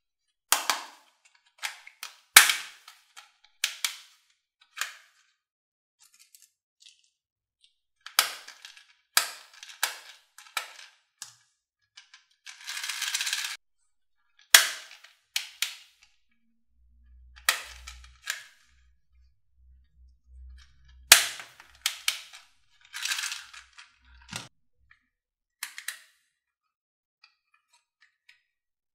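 Hand-held plastic toy guns being worked: sharp plastic clicks and snaps at irregular intervals, with a rattling scrape lasting about a second partway through and a few soft low knocks later on.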